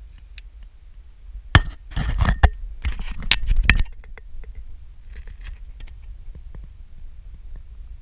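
Handling noise on a GoPro camera as it is turned to pan: a cluster of sharp clicks, knocks and scraping from about one and a half to four seconds in, with a few lighter ticks after. Underneath is a low, steady wind rumble on the microphone.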